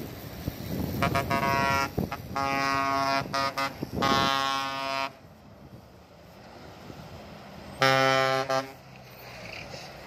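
A bus horn sounds in a string of toots and a longer broken blast over the first few seconds, then gives one more short blast near the end. Engine and road noise run underneath.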